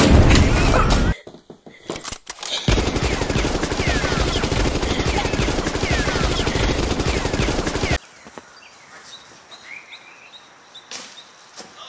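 A boom from an explosion sound effect at the start, then, after a short lull, about five seconds of continuous rapid machine-gun fire sound effects that cut off suddenly. Faint bird chirps follow.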